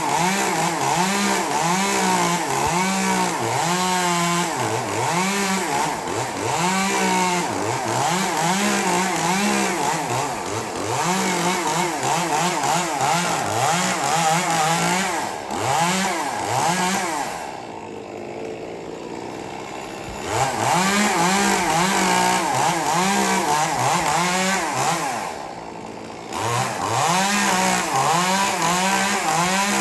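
Chainsaw running hard, its engine pitch rising and falling as it is revved and loaded in the cut. Twice in the second half it drops back to a lower, quieter idle, once for about three seconds and once briefly.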